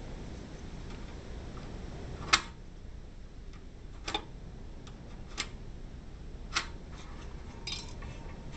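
Four sharp, spaced clicks of small metal hand tools being handled and set against the metal awning support arm while a line is marked and scribed on it, the first click the loudest, over a low steady background noise.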